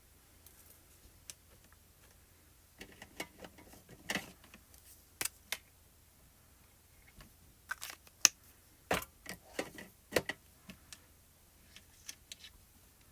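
Irregular small clicks and taps of art markers being handled on a craft table, caps pulled off and snapped back on and pens set down, in two busy clusters with a few softer taps near the end.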